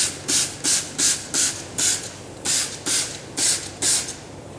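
Trigger spray bottle squirting iron remover onto a brake disc: about ten short, hissing squirts, roughly two a second, with a brief pause midway.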